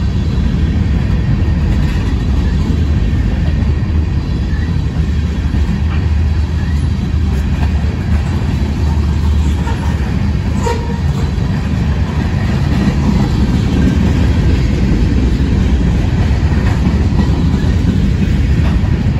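Mixed freight train's covered hopper and tank cars rolling past close by: a steady, loud rumble of steel wheels on rail.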